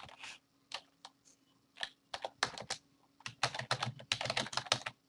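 Typing on a computer keyboard: a few scattered keystrokes, then a quick run of key clicks from about two seconds in.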